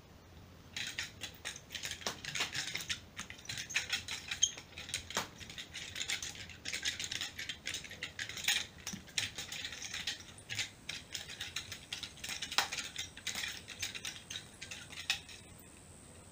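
Nunchaku being swung and spun, the chain and handles rattling and clicking in a rapid, irregular run of clicks that starts about a second in and stops shortly before the end.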